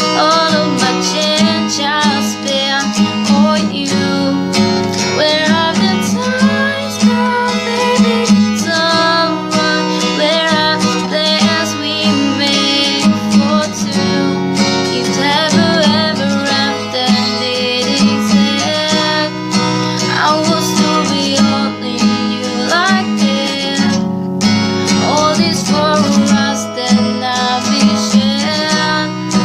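Acoustic guitar strummed steadily with a singing voice over it, a pop song cover.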